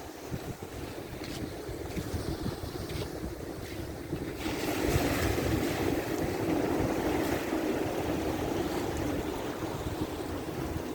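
Ocean waves washing on the shore, with wind buffeting the microphone. A wave surges in about four seconds in and slowly washes away.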